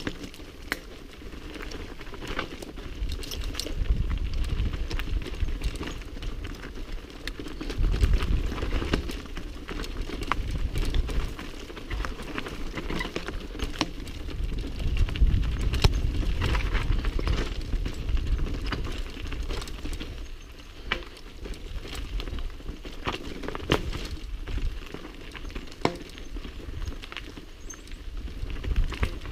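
Mountain bike rolling fast down a rocky, leaf-covered dirt trail: tyres crunching over loose stones and the bike rattling, with many short knocks. A low rumble swells and fades several times along the way.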